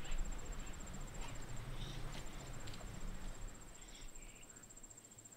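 Woodland ambience: an insect trilling steadily at a high pitch, with a few short bird chirps and a low rumble underneath, all fading down near the end.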